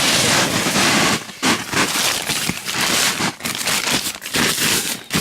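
Rustling and crinkling of the tent's insulated floor fabric as it is pulled and straightened by hand, in uneven surges with brief pauses.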